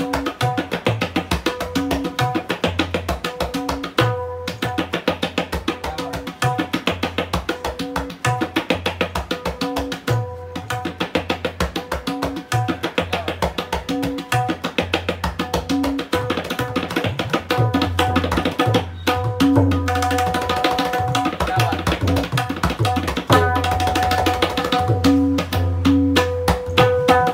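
A two-year-old handmade tabla pair played solo: fast runs of strokes on the right-hand dayan, ringing at one steady pitch, over deep bass strokes from the left-hand bayan, which grow heavier in the second half.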